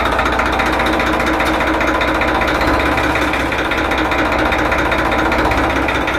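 Tractor diesel engine running steadily at idle, a fast, even clatter.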